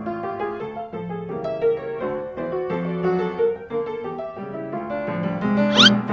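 Background piano music playing a light melody, with a brief rising sweep near the end.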